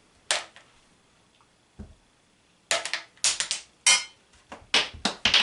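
Glass marbles striking and bouncing off wooden Jenga blocks and the table: a single sharp click, another a moment later, then a rapid run of clatters near the end.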